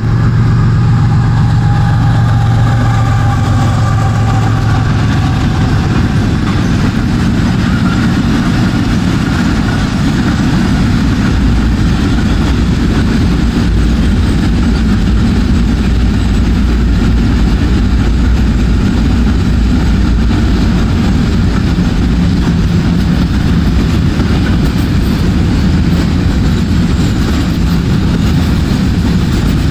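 A freight train passes close by: a diesel locomotive's engine hums steadily for the first several seconds, then fades. From there on a long, steady rumble comes from container flat wagons rolling over the rails.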